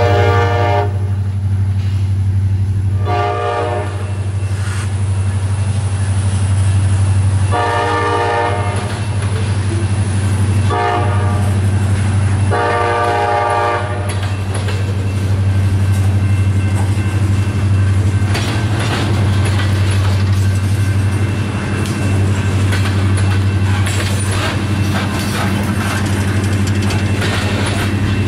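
Diesel freight locomotive horn, the horn of a CSX SD40-3, sounding five blasts over the first fourteen seconds, the fourth one short. A steady low rumble of the train runs underneath. From about halfway, loaded freight cars roll past with a clickety-clack of wheels over rail joints.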